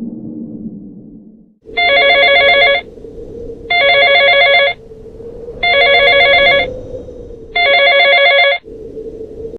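A telephone ringing four times, each ring about a second long with a fast warble, about two seconds apart. Music fades out just before the first ring.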